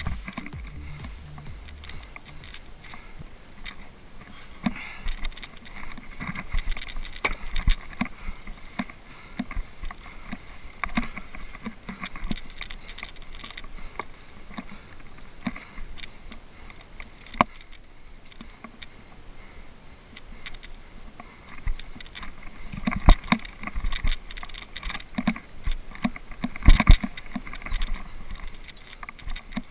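Scrambling on rock: irregular knocks and scrapes of gloved hands and boots on granite, over a light background rush. The knocks come louder and closer together near the end.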